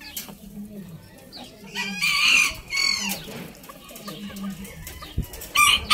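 Chickens calling: a rooster crows about two seconds in, and there is more clucking and calling near the end.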